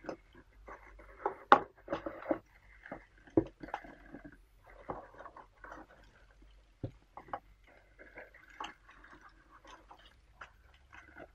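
Paper tea packets and small cardboard boxes being handled and lifted out of a paper-lined cardboard shipping box: irregular rustling and crinkling with light taps and knocks, the sharpest knock about a second and a half in.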